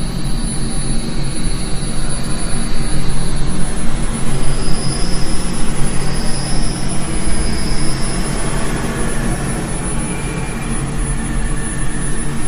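Dark ambient horror drone: a loud rushing noise over steady low humming tones, with three high airy whistles swelling and fading from about four to eight seconds in.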